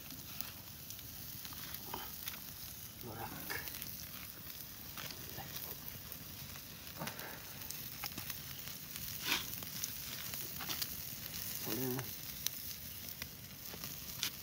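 Open wood fire crackling, with many short sharp pops, under chicken pieces grilling on a wire mesh, and a steady sizzle from the meat.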